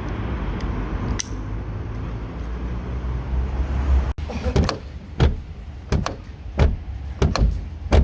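Car door lock and handle being worked: a series of about six sharp clunks and clicks in the second half, after a low steady rumble.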